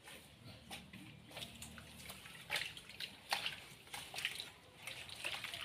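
Water splashing and dripping in short, irregular bursts as a floor is washed down with water.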